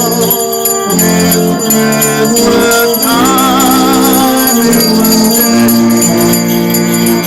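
Salvation Army brass band playing a slow tune in held chords.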